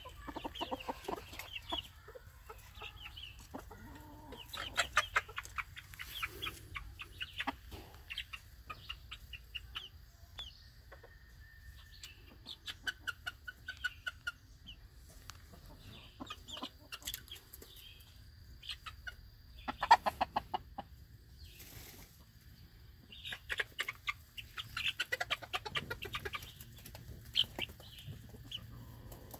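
Several chickens clucking in runs of short, quick calls, with quieter gaps between the runs and one louder burst about twenty seconds in.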